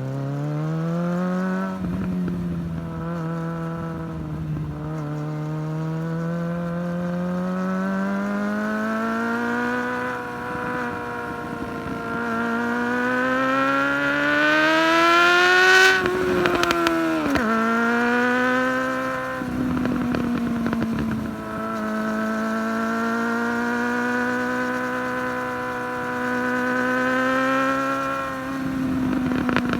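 Engine revving through an exhaust with its baffle (chicane) fitted. The pitch rises and falls slowly, climbs to a high rev about halfway through, then drops sharply with crackles, and it crackles again later and near the end.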